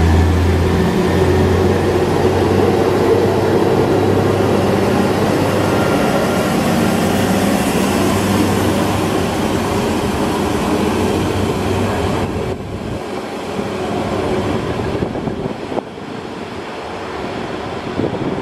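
SA136 diesel multiple unit pulling out of the station: its diesel engine hums under power over wheel-on-rail running noise. The sound drops away suddenly about twelve seconds in as the train moves off into the distance.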